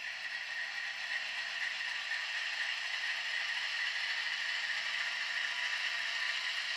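HO scale model locomotive running along the track: a steady rattling hiss of wheels and drive, growing slightly louder over the first few seconds.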